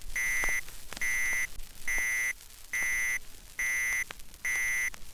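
Electronic beeping: a steady, high beep repeats evenly, about one a second, six times in all, each beep about half a second long.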